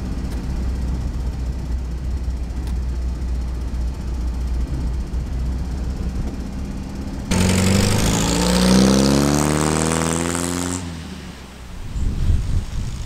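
1956 Standard 8's small four-cylinder engine running as the car drives along, a steady low drone heard from inside the car. About seven seconds in the sound jumps to a louder passage of about three seconds in which the engine note falls in pitch, then drops back to a quieter engine sound.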